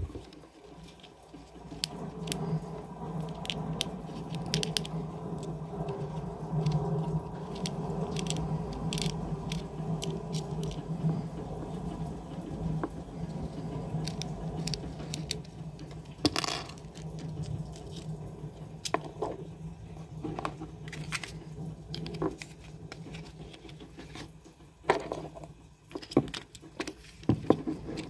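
Small clicks, taps and scraping of hard plastic and metal parts as a compact weapon light is adjusted and fitted to a Sig P365 pistol. A steady low hum runs underneath, loudest through the first half.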